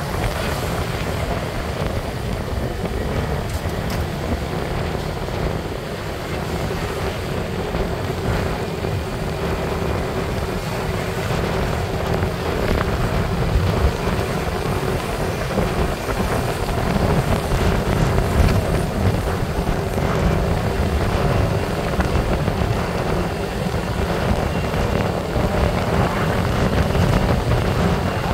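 Motorbike riding along a road: its engine running steadily under heavy wind buffeting on the microphone, a little louder in the second half.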